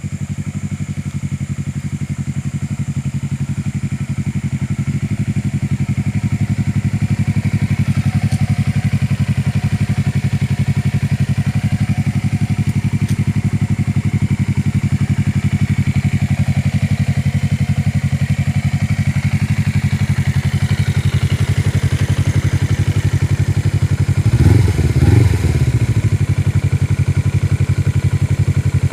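2015 Suzuki Inazuma 250's parallel-twin engine idling steadily with a deep note through aftermarket Akrapovic-style twin exhausts on custom mid-pipes and stock headers. Near the end the throttle is blipped twice in quick succession.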